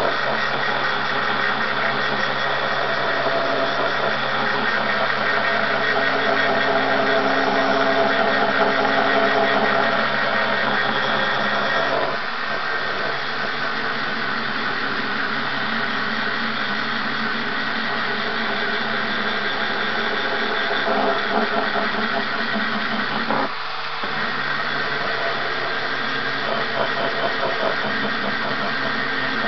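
Angle grinder running under load, its disc grinding a curved groove into a metal jaw: a steady motor whine under dense grinding noise, dipping briefly about twelve and twenty-four seconds in.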